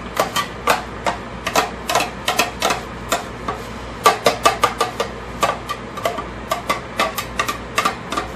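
Onions being stirred into bacon and celery in a frying pan: a utensil tapping and scraping irregularly against the pan, a few knocks a second, some with a short metallic ring.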